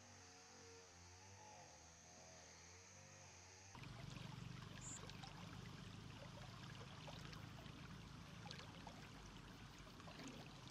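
A faint steady hum, then from about four seconds in a shallow stream trickling and splashing.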